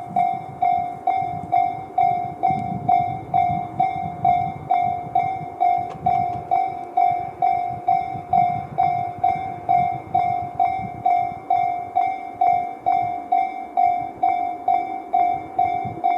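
Japanese electronic level-crossing alarm bell, Tobu 'sound C' tone, ringing steadily at about two strikes a second as the crossing warns of an approaching train.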